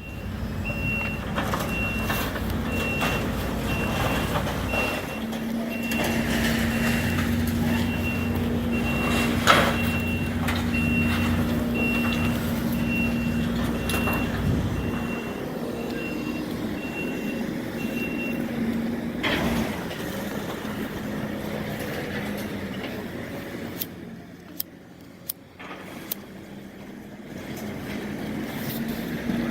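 Heavy diesel equipment running, with a backup alarm beeping steadily about once a second. The beeping stops about two-thirds of the way through and the engine drone eases off, with a few sharp clicks near the end.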